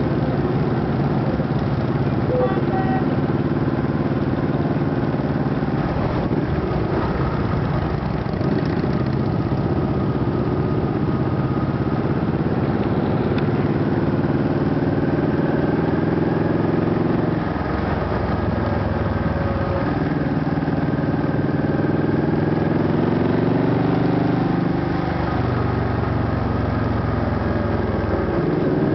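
Honda Shadow ACE Tourer's V-twin engine running under way at low speed. Its pitch rises with the throttle and drops at a gear change about halfway through and again near the end.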